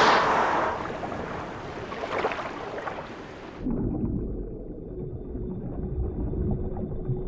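Underwater monster sound effect: a loud rushing surge of water that cuts off abruptly a little past three and a half seconds in, giving way to a muffled underwater rumble with a steady low moaning tone.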